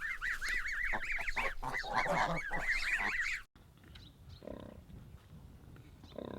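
A flock of domestic geese honking, with many rapid, overlapping calls. They cut off abruptly about three and a half seconds in, and quieter, lower animal calls follow.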